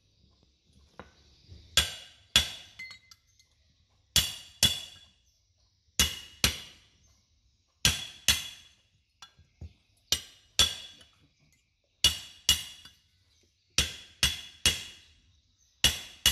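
Hammer striking metal: sharp, ringing blows in pairs about every two seconds, with three in a row near the end.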